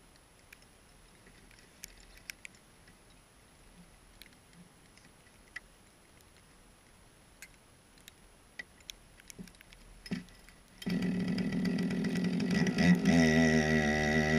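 Two-stroke chainsaw being started: faint clicks of handling, then a short burst, and about eleven seconds in the engine catches and runs loudly, revving up a couple of seconds later.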